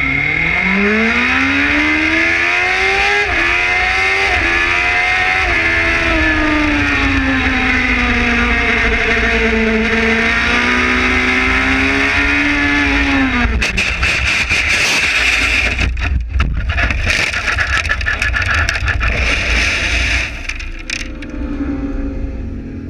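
Racing motorcycle engine heard onboard, accelerating hard through several gear changes and then held at speed. About 13 seconds in, the engine note cuts off and gives way to loud scraping, clattering and crashing as the bike goes down and slides and tumbles into a gravel trap: a front-end tuck crash, which the rider puts down to a cold tyre and a touch of front brake. It ends in a quieter rumble.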